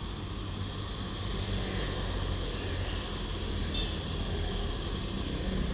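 Motor scooter idling, a steady low hum, with other motorbikes going by on the road.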